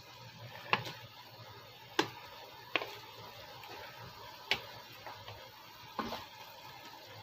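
A cooking utensil clicking against a pan five times at uneven intervals, over the steady low sound of sauce simmering.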